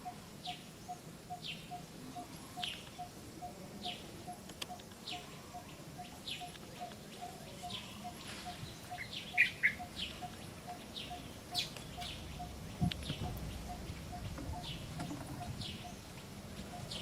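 Short, high-pitched animal chirps that fall in pitch, repeating about one and a half times a second, with two louder calls about nine seconds in. Underneath runs a faint, even pipping of about three notes a second.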